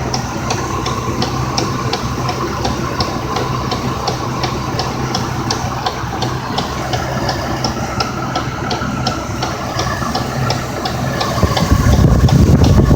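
Ford 6.8-litre Triton V10 of a 2001 F-250 Super Duty idling, with a steady, sharp clicking at about three a second from around the alternator, heard only once the engine is at operating temperature. The owner suspects the alternator's rear bearing, or else a stuck valve. A louder low rumble joins near the end.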